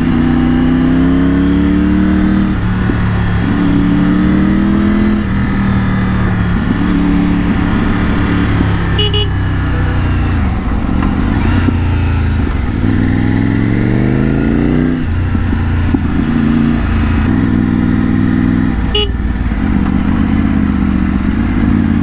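Triumph Tiger 900's three-cylinder engine through a Scorpion aftermarket exhaust, ridden in second gear: the revs climb as the throttle opens out of the corners, then fall back on the overrun into engine braking, again and again. Two brief clicks come through about a third of the way in and again near the end.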